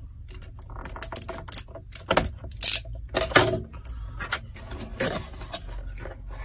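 A small cardboard box being opened by hand: a tape seal peeled off, then the flaps and inner packaging handled, giving a run of irregular clicks, crackles and rustles of cardboard and paper.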